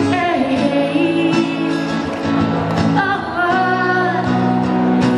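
Woman singing a pop song live into a microphone, accompanied by strummed acoustic guitar.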